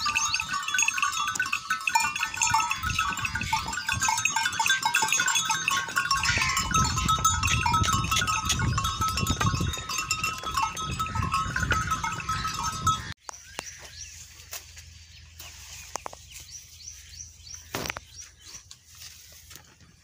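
A flock of sheep bleating over one another, dense and continuous, until the sound cuts off abruptly about thirteen seconds in, leaving only quiet outdoor background with a few faint clicks.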